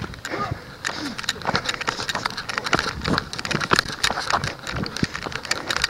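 Running footsteps crunching and thudding on loose dry dirt, an irregular run of several strikes a second, mixed with the knocks and rubbing of a handheld camera jostled by the runner.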